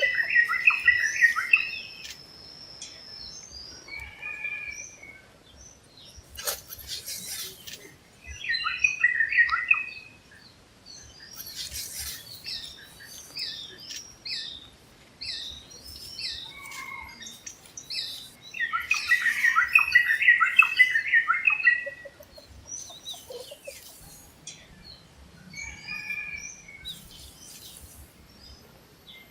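Several wild birds singing in forest: a bright song of quick, jumbled notes comes in clusters every several seconds, the longest near the end, with scattered higher chirps between them. A thin, steady high whistle is held through the first few seconds.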